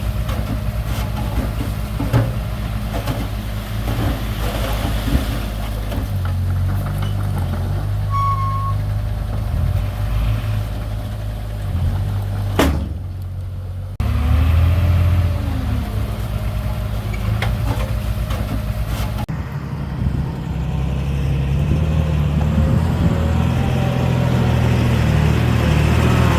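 Diesel engines of heavy earthmoving machinery running and working, a steady low drone that changes abruptly several times where the footage is cut.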